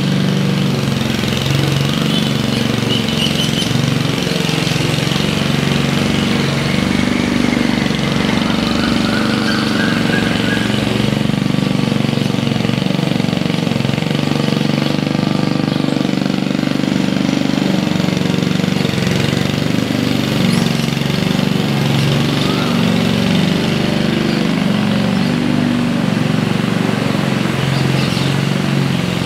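Walk-behind rotary lawn mower's small engine running steadily under load as it is pushed across the grass, cutting.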